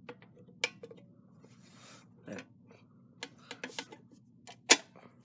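EX515 key clicking and scraping in an elevator fire-service key switch as it is turned to the on position. The turning ends in one sharp, loud click a little before the end.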